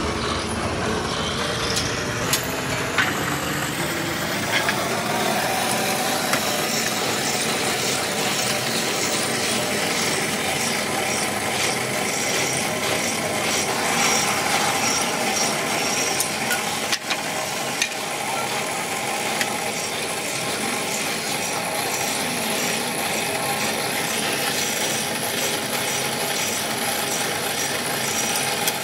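Belt-driven pillar drill running and drilling rivet holes through brake lining blocks, with short repeated scraping as the bit cuts the friction material, over a steady machine drone.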